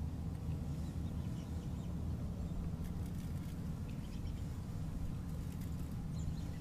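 A steady low hum, with faint short bird chirps scattered over it.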